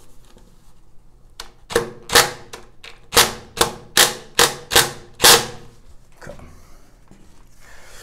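Ryobi cordless drill driving a screw through a brass shower slide-bar bracket into the tiled wall, in about eight short, sharp bursts, a couple a second, as the screw is run home.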